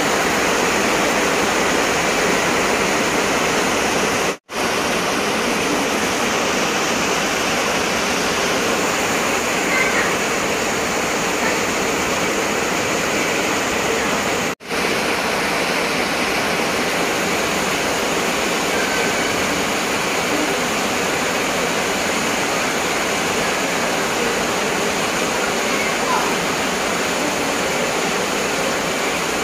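Heavy rain pouring down: a dense, steady hiss that cuts out for an instant twice.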